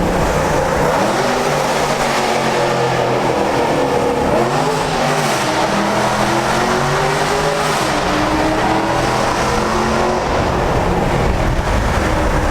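Straight-piped Chevy SS (Holden Commodore) 6.2-litre V8 with headers and no tune accelerating hard in a tunnel, its exhaust loud and echoing. The revs rise and drop several times as it pulls through the gears.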